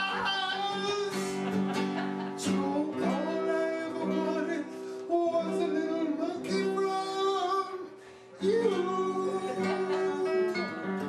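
A song sung by a man to acoustic guitar accompaniment, with a short break about eight seconds in.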